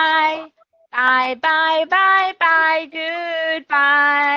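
A single high voice singing a children's goodbye song without accompaniment, in six even syllables, 'bye-bye, bye-bye, goodbye', with the last note held.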